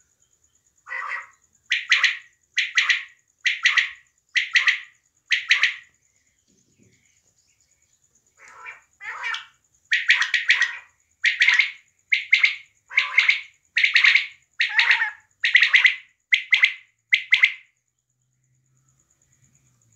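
Female common quail (batair) calling in short repeated notes. First comes a run of about six, roughly one a second, then after a pause a longer run of about a dozen slightly faster notes.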